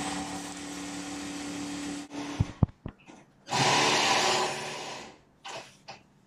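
A small electric motor or blower whirring in two bursts, the first about two seconds long with a steady low hum and the second under two seconds, with a couple of sharp clicks between them.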